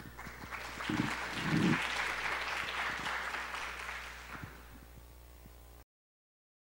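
Audience applauding, swelling over the first two seconds and then dying away, until the sound cuts off abruptly about six seconds in.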